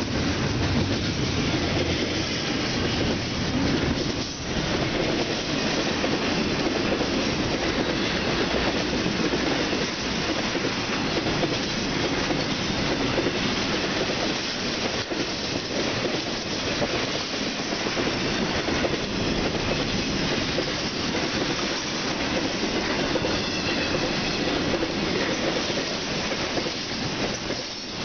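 Cars of a BNSF intermodal freight train, double-stack container cars and trailer-carrying flatcars, rolling past close by: a steady noise of steel wheels on the rails and rattling cars.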